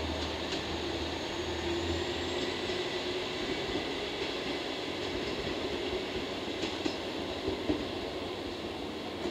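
Two-car KiHa 47 diesel railcar set pulling away down the line, its engine and wheels on the rails running steadily as it recedes. A low engine hum drops out about two and a half seconds in, and a couple of faint knocks come near the end.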